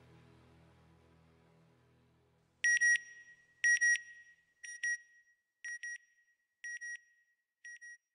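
The last of some background music fades out, then short, high electronic beeps sound about once a second, six in all, each fainter than the one before.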